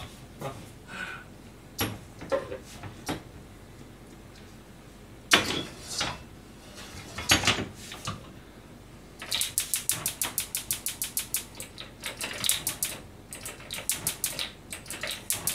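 A few clanks of a metal pan set on a gas hob, then a gas burner's igniter clicking fast, about six clicks a second, in runs through the last six seconds.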